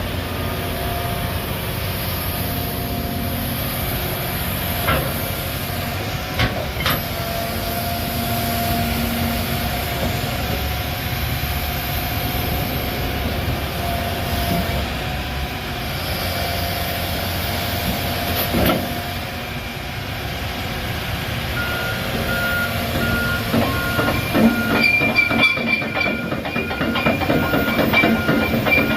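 John Deere 350G excavator's diesel engine running steadily, with a few knocks. Near the end its travel alarm starts beeping, about two beeps a second, with rattling and clanking as the machine starts to move.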